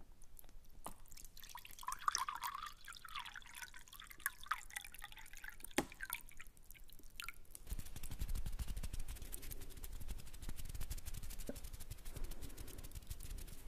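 Close-miked clicks and pops that imitate dripping water. About eight seconds in they give way to a denser run of rapid crackles over a low rumble.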